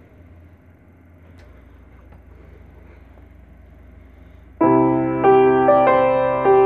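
Faint room hiss, then about two-thirds of the way through a piano comes in loudly with sustained opening chords, changing chord every half second or so.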